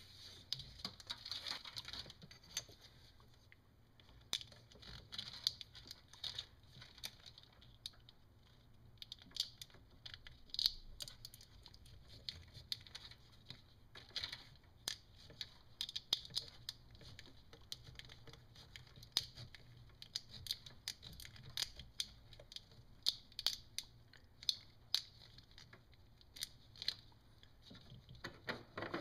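Corrugated plastic split loom crinkling and clicking as it is worked by hand over a wiring harness: irregular small clicks and rustles, a few a second.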